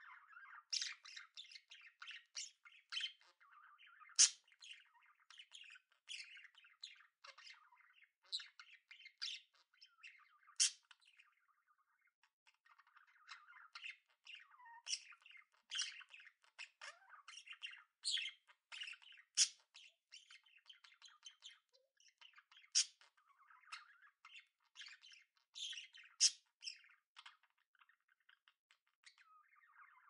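Budgerigars chattering: a busy run of short, high chirps and warbling notes, with a couple of brief pauses.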